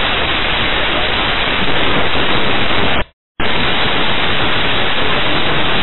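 Loud, steady hiss of static on an air traffic control radio recording between transmissions. It drops out completely for a moment about three seconds in, then the hiss resumes.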